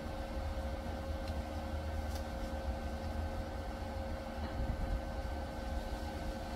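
Steady electric machine hum with a low rumble and a few constant tones, unchanging throughout.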